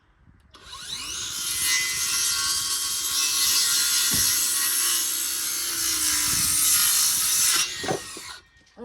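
Power saw spinning up and cutting through a water-soaked lumber board for a window header, a steady loud cut of about seven seconds that stops near the end as the blade winds down.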